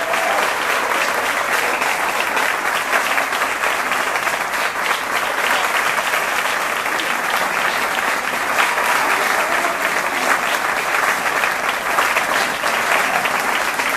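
Audience applauding steadily as the performance ends.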